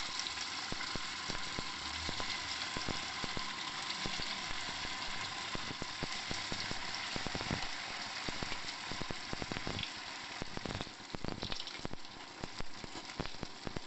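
Sabudana vadas (sago and potato patties) frying in hot oil: a steady sizzle full of quick crackles and pops. From about ten seconds in the sizzle thins and the pops become more scattered.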